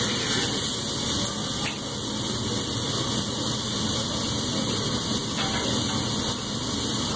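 Steak and seafood sizzling on a hot teppanyaki griddle as the chef turns them with a spatula: a steady hiss.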